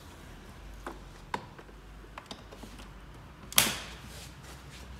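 Seat Leon's plastic door trim panel being handled and fitted back onto the door: a few light clicks, then one sharp, loud knock about three and a half seconds in.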